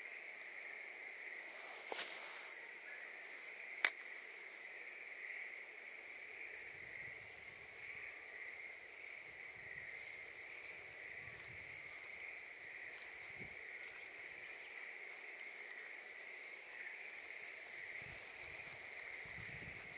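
A steady high-pitched insect trill in the background. A sharp click comes about four seconds in, and a few faint bird chirps come later.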